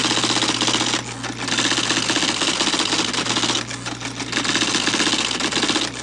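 Two automatic typewriters, an IBM typeball machine and a Xerox daisy-wheel machine, typing at full speed at once: a fast, continuous clatter of strikes over a steady motor hum. The clatter dips briefly about a second in and again a little past the middle.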